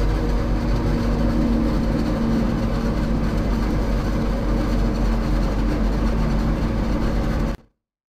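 Claas Jaguar 890 forage harvester running under load while chopping maize into a trailer alongside: a loud, steady machine drone with a constant hum. It cuts off suddenly near the end.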